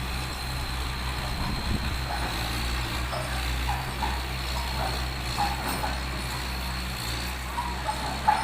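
An engine running steadily with a low hum, and scattered short higher-pitched sounds that grow more frequent near the end.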